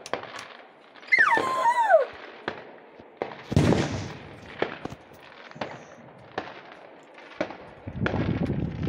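Fireworks going off: a series of sharp bangs and pops, with a falling whistling tone about a second in, a louder burst at about three and a half seconds, and denser crackling near the end.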